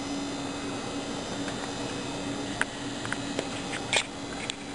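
Steady low hum and hiss, with a few scattered short clicks, the sharpest about two and a half and four seconds in.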